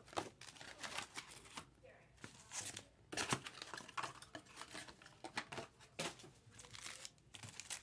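Trading card packaging being opened and handled: irregular crinkling and tearing of wrappers with scattered sharp clicks and rustles.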